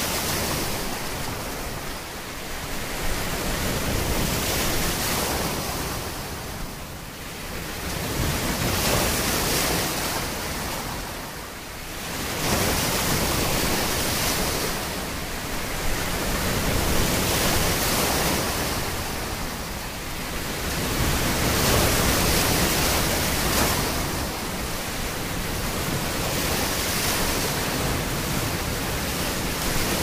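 Ocean waves washing, a continuous hiss of surf that swells and eases every few seconds.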